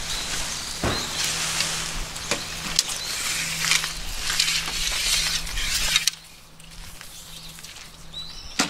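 Tent fabric rustling and crinkling as a Captain Stag tunnel tent is collapsed and its poles are handled, with many small clicks. A faint steady low hum runs underneath. About two thirds of the way in it drops suddenly to a quieter stretch of scattered clicks and rubbing as a pole is pulled through its sleeve.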